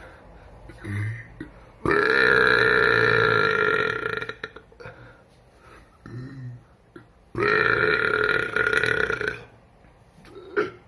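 A man belching loudly: two long, drawn-out burps of about two seconds each, the first starting about two seconds in and the second a little past seven seconds, with short, quieter sounds between them.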